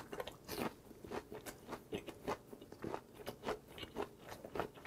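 Close-up chewing of a wrap of grilled pork belly, pen shell adductor and aged kimchi, with wet, crunchy mouth clicks at about four chews a second.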